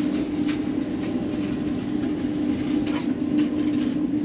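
Steady rumble of a ferry's engines and machinery heard inside the ship, with a constant low hum.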